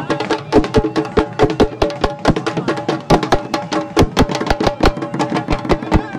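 Live folk dance music: a dhol drum beaten in a fast, driving rhythm of about five or six strikes a second, with a steady held melody above it.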